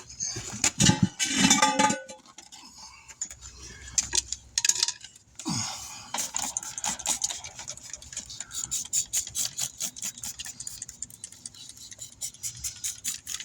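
Metal tools clinking and scraping against a wheel and tire, then a run of rapid, even clicks, about four a second.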